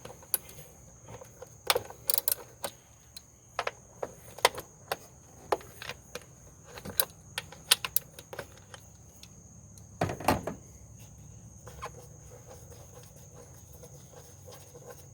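Irregular metal clicks and clinks of hand tools as a 10 mm socket wrench takes out the bolts of an engine appearance cover, with a louder clatter about ten seconds in. A steady high insect trill runs underneath.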